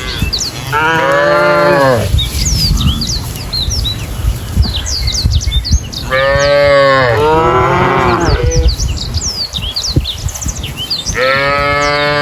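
Cattle mooing: a long moo about half a second in, two more back to back around the middle, and another starting near the end. Small birds chirp between the calls.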